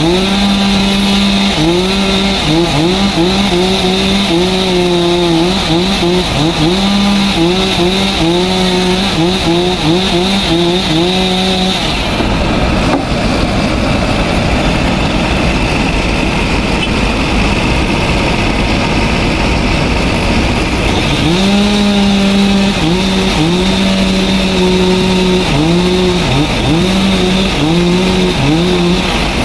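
Two-stroke chainsaw running at high revs, its engine note dipping and recovering again and again as the chain bogs in the wood. About twelve seconds in the steady note gives way to a rough, noisy stretch for several seconds, then the saw's note comes back.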